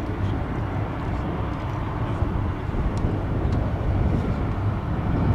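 Boeing P-8 Poseidon jet airliner-type patrol aircraft flying past, its two CFM56 turbofan engines giving a steady rumbling jet noise that grows a little louder toward the end.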